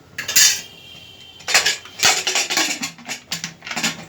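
Metal pressure-cooker lid being fitted and closed, with scraping and clattering of metal on metal in several irregular bursts.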